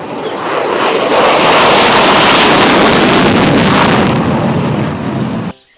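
F-16 fighter jet's engine at full afterburner on a takeoff, a loud rushing roar that builds over the first second, is loudest in the middle and cuts off suddenly near the end.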